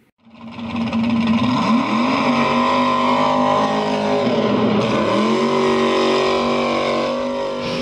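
Vehicle engine running at high revs over an intro logo, its pitch dipping and climbing back twice, about two and five seconds in.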